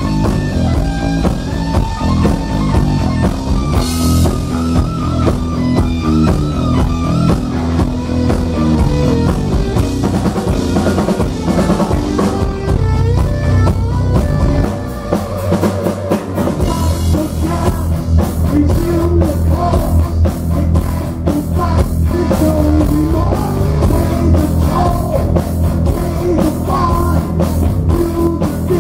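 Heavy metal band playing live: distorted electric guitar lines with bending notes over bass and drum kit. About halfway through, the bass drops out for a moment before the full band comes back in with a steady, fast drum beat.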